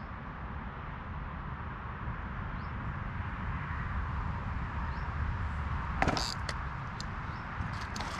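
Wind rushing steadily over the microphone. About six seconds in there is a sharp knock, and near the end a run of small clicks and rustles as the float rod is snatched up and struck into a biting fish.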